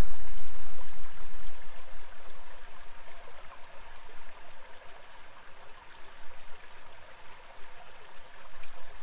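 River water running and splashing over rocks at the shoreline: a steady rushing noise, loudest in the first two seconds and then easing.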